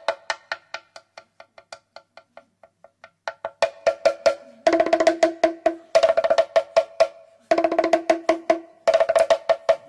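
Music of fast wooden percussion: a rapid, even run of pitched knocks, like a wood block. It fades to soft, sparse strikes over the first few seconds, then returns in loud phrases of about a second each.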